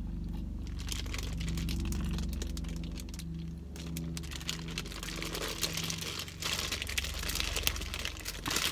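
Chewing a mouthful of burrito while the plastic chip bag wrapped around it crinkles in the hand, the crinkling growing busier in the second half. A low steady hum runs underneath.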